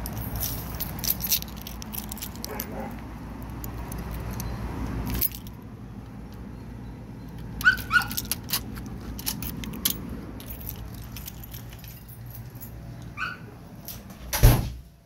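Keys jangling and clicking in the first seconds. A few short, high dog yelps come about halfway through and again near the end, and a single loud knock comes just before the end.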